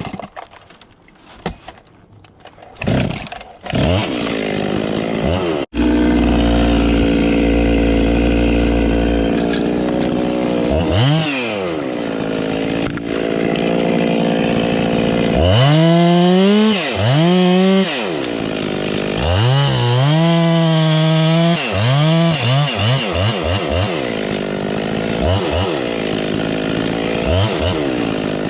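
Husqvarna two-stroke chainsaw idling, then revved to high speed several times, held up high for a second or two at a time, with quick throttle blips near the end. A few short knocks come before the saw's engine sound begins, about four seconds in.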